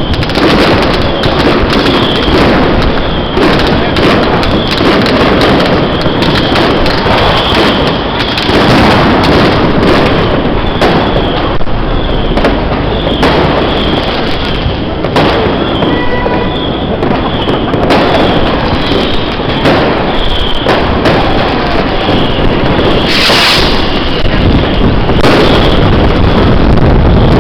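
Fireworks and firecrackers going off in a dense, continuous barrage of overlapping bangs and crackles, very loud throughout.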